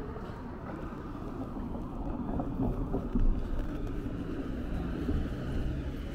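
Street traffic: a motor vehicle running past, a steady low rumble of engine and tyres that swells a little a few seconds in.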